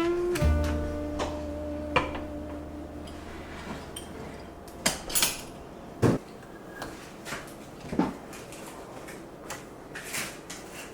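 Kitchen clatter: utensils and dishes knocking and clinking several times, scattered and unhurried. A low held note fades out over the first few seconds.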